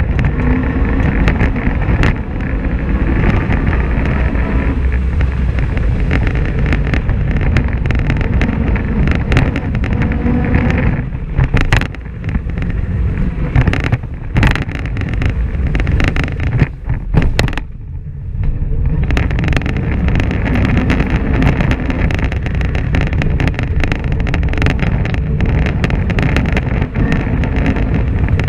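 Polaris RZR XP 1000 side-by-side driven hard over a gravel dirt trail: its parallel-twin engine running under load, with knocks and rattles from the rough ground and wind on the microphone. The engine sound drops away briefly a few times near the middle, as if the throttle eases.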